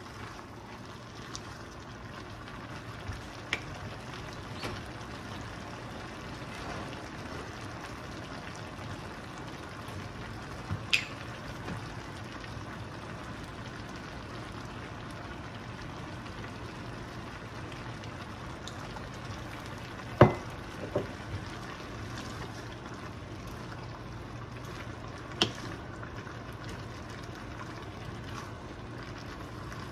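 Chopped meat sizzling and simmering in its juices in a skillet while a wooden spatula stirs it, with a few sharp knocks of the spatula against the pan, the loudest about twenty seconds in.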